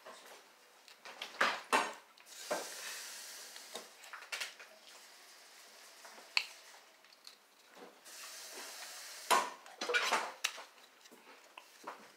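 Small plastic L.O.L. Surprise doll accessories and packaging being handled: irregular clicks and taps, with a stretch of rustling about two seconds in and another about eight seconds in.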